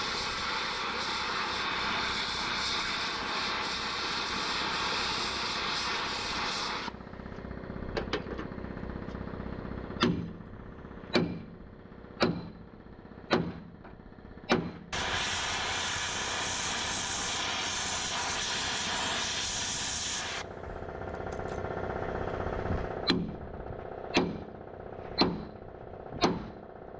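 Metalwork on a steel truck chassis: a steady harsh grinding noise for about seven seconds, then heavy hammer blows about once a second, grinding again, and more hammer blows near the end.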